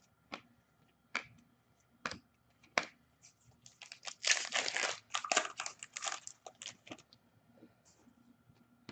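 Trading cards handled with a few sharp clicks, then a foil trading-card pack wrapper crinkling and tearing for about three seconds, starting about four seconds in.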